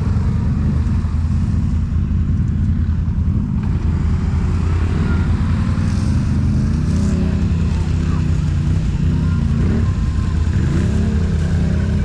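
Can-Am Outlander 1000 ATV's V-twin engine running at low speed, a steady low drone whose pitch rises and falls with the throttle in the second half.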